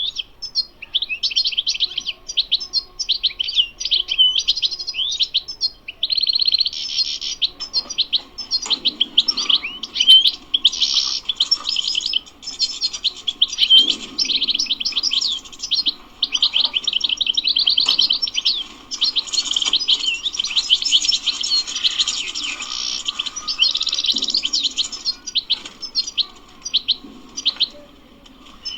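European goldfinch singing without a break: a fast, tumbling run of twitters, trills and quick chirps.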